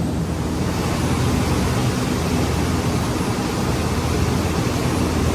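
Tour boat under way: a steady low engine drone mixed with an even rush of wind and water.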